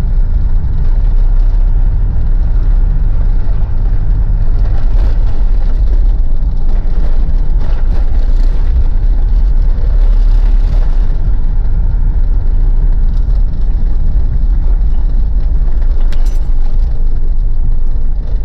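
Inside the cabin of a diesel Mitsubishi Pajero driving over a bumpy, snow-covered road: a steady low rumble of engine and road noise, with occasional knocks and rattles from an empty child seat.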